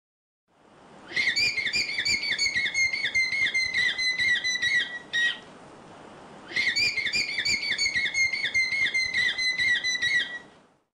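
Vicuña giving its shrill alarm call: two bouts of rapid, high-pitched whistling notes, about three or four a second, each bout lasting about four seconds with a short pause between.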